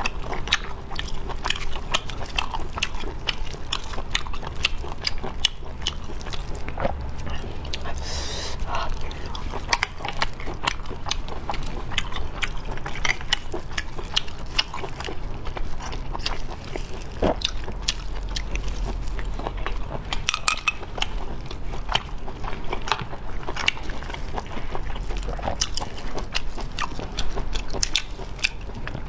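Close-up eating of sea snails: chewing the meat, with many small clicks, and shells knocking as they are handled.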